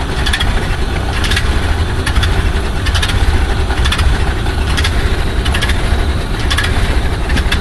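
1929 Ford Model A truck's four-cylinder engine idling steadily, with a light click about once a second.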